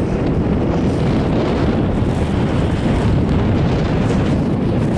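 Wind buffeting the camcorder's microphone on a moving chairlift: a loud, steady low rumble with no clear tone.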